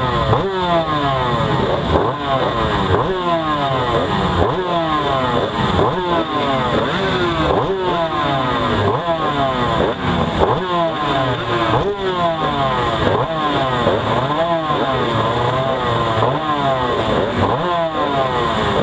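Two-stroke race motorcycle engines, the rider's own Yamaha TZ250 among them, being revved on the starting grid: repeated blips over and over, each climbing and then falling in pitch, with several engines overlapping.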